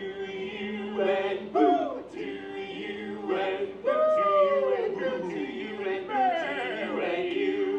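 Barbershop quartet of men's voices singing a cappella in close harmony, holding chords while a higher voice slides up and down between notes.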